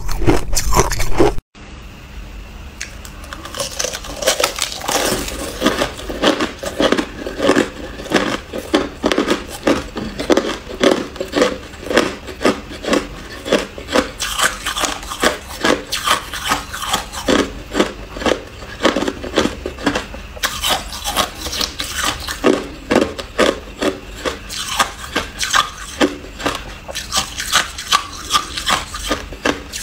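Close-miked crunching of ice between the teeth. Hard clear ice cubes are bitten loudly, then after an abrupt cut about a second and a half in, crushed ice eaten from a spoon is chewed more softly, with quick crisp crunches several times a second.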